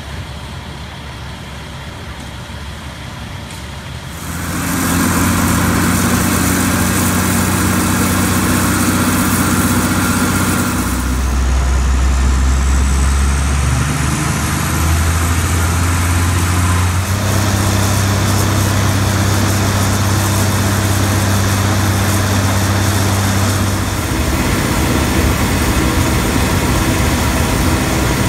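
A quieter steady hiss, then about four seconds in a large engine starts being heard, running steadily with a deep, even hum. The hum's pitch shifts a few times.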